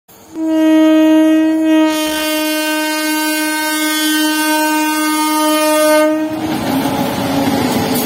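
WAP-7 electric locomotive's horn sounding one long steady blast of about six seconds as the train approaches, then the rushing noise of the locomotive running through the station at speed without stopping.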